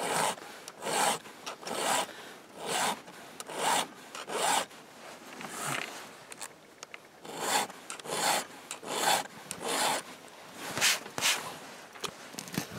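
Round file pushed by hand through the cutter teeth of a chainsaw chain, sharpening it: a rasping scrape on each stroke, about a dozen strokes at roughly one a second, with a short pause about halfway through.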